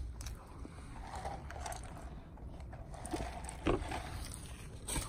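Faint chewing and mouth sounds of a person eating, with a few soft clicks.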